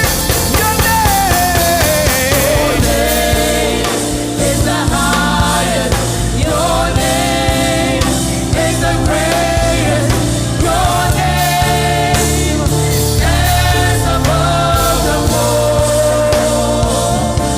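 Gospel praise song with sung vocal lines and choir voices over a full band with a steady bass line and drums.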